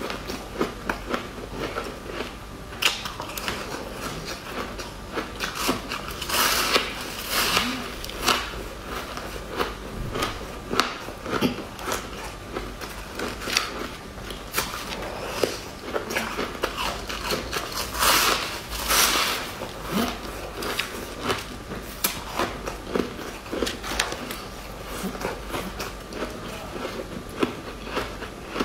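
Close-up biting and crunching of frosty pink frozen ice chunks: a dense run of sharp cracks and crackles as the ice is bitten and chewed, louder about a quarter of the way in and again about two thirds of the way in.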